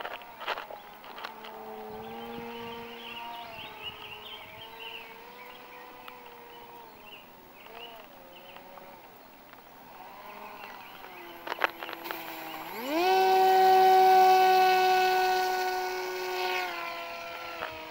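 Motor and propeller of a radio-controlled Icon A5 model seaplane whining in flight, the pitch wandering up and down with the throttle. About 13 seconds in it spools up quickly to a much louder, steady high whine, which drops back down near the end.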